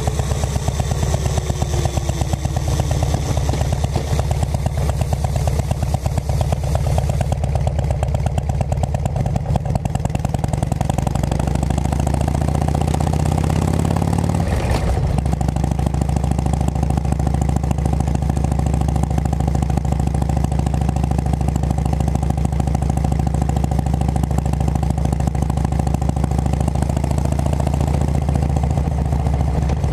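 2006 Harley-Davidson Road King Classic's Twin Cam V-twin running through Cycle Shack aftermarket pipes while riding. The note falls over the first few seconds, climbs under acceleration, breaks sharply about halfway through at a gear change, then holds steady.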